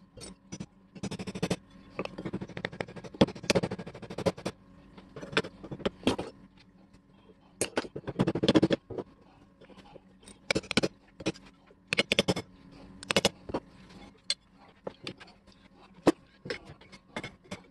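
Small hammer tapping on a thin brass badge laid on a wooden block, in irregular light strikes, with stretches of scraping metal between them: the bent badge being straightened.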